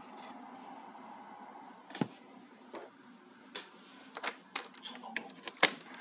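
A series of irregular sharp clicks and knocks from small electrical gear being handled on a desk: the receiver board, its wiring and a power strip. The clicks come more often towards the end, and the loudest is near the end.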